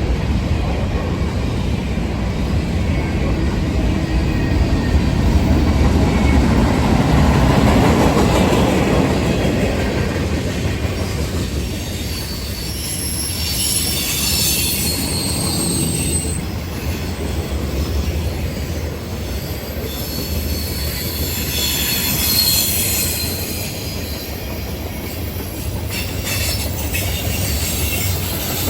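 Freight train cars rolling past with a steady rumble and wheel clatter. High-pitched wheel squeal from the curve rises twice, about halfway through and again near the two-thirds mark.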